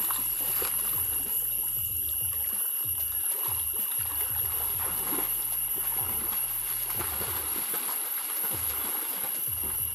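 Pond water splashing and sloshing as a person swims through it, in irregular surges about once a second. A steady high-pitched tone runs underneath.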